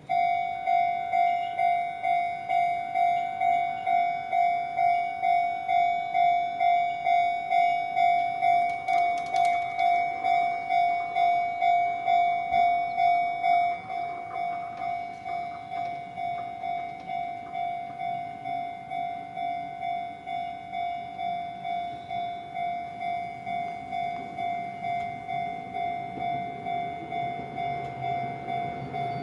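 Japanese level-crossing warning bell starting up: an electronic ding repeating rapidly and evenly, which drops to a lower volume about fourteen seconds in. Near the end the low rumble of an approaching electric train grows underneath.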